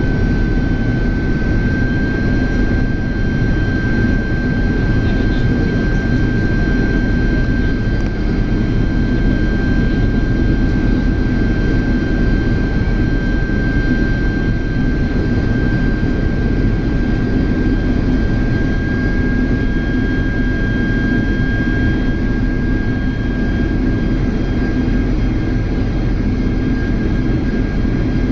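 General Electric CF6 turbofans of a Boeing 767 heard from inside the cabin, running steadily in flight. A dense rumble is topped by one high whine that holds a steady pitch.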